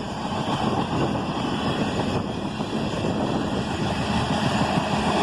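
Freight cars of a passing manifest train rolling by: a steady rumble of steel wheels on the rails, with some wind on the microphone.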